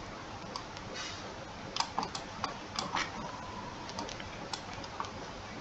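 Several light clicks at irregular intervals over a quiet, steady hiss.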